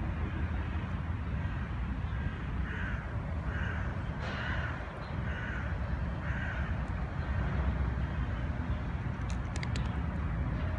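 A bird cawing five times in an even series, about one call a second, over a steady low rumble.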